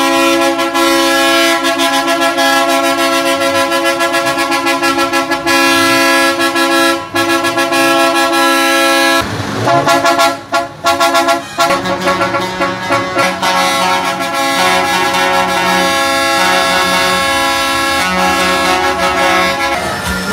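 Truck horns held in long, steady blasts as the trucks roll past: one chord of horns sounds for about nine seconds and breaks off, then a different horn chord takes over about twelve seconds in.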